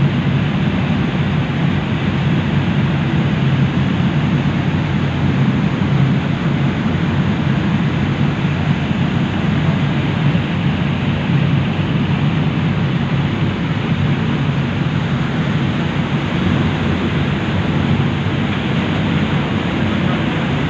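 Passenger ferry under way: its engines running with a steady drone, mixed with the rush of water churned up in the wake.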